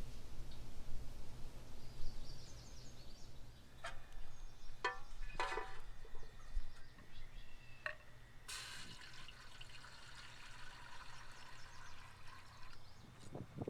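Liquid being poured in a steady stream for about four seconds, starting and stopping abruptly, after a few short knocks and clinks of utensils or containers.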